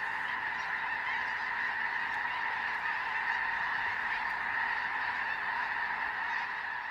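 A huge flock of snow geese calling all at once: thousands of overlapping honks merging into a steady, unbroken din.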